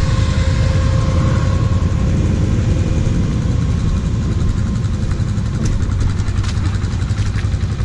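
Quad (ATV) engine idling steadily at close range, with a few faint clicks in the second half.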